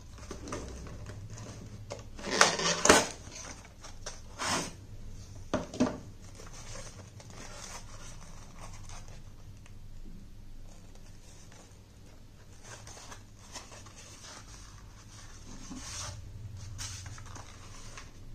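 Cardboard toy-car packaging being handled: the inner tray scraping and sliding out of the box, with a burst of loud rough scrapes about two to three seconds in and a few more later.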